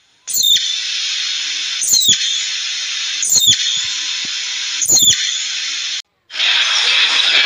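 Red squirrel cracking seeds: four sharp cracks about a second and a half apart over a steady hiss. About six seconds in, the sound cuts out briefly and a rougher steady noise follows.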